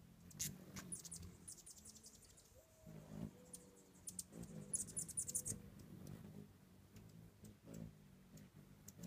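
Hummingbirds chattering: two quick runs of high, sharp chips, one about a second in and another around the middle, the calls hummingbirds make when chasing each other off a feeder.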